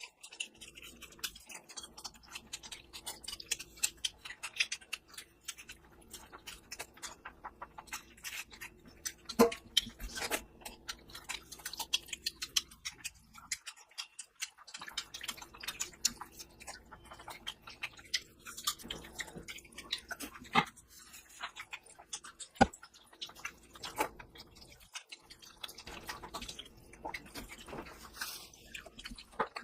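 Close-miked eating of mutton curry and rice: wet chewing with many short, irregular lip-smacking clicks.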